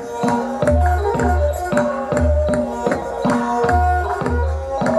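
Traditional Khmer-style ensemble music: repeated deep drum strokes under a melody of struck, pitched instruments, accompanying the dance.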